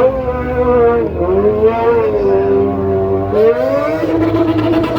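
Stunt motorcycle engine held at high revs, its pitch wavering with the throttle, then climbing sharply about three and a half seconds in before dropping back to a steady note.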